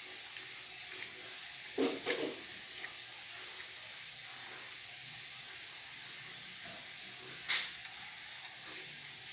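Eating sounds over a steady hiss: a pair of short mouth or utensil noises about two seconds in, and another short noise near the end.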